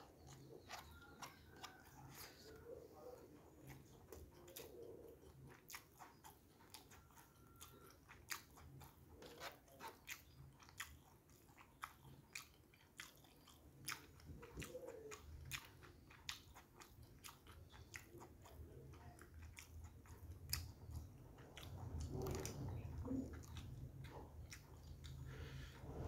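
A person chewing a mouthful of rice and tofu, with many small wet clicks and smacks of the mouth.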